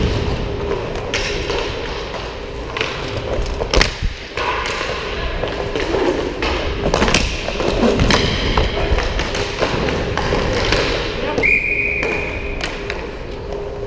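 Roller hockey play in a reverberant rink: sticks and puck knocking and thudding against the boards, with players' voices. A brief steady high tone sounds about eleven and a half seconds in.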